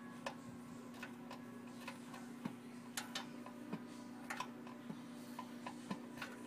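A dozen or more small, sharp clicks and ticks at irregular intervals over a steady low hum.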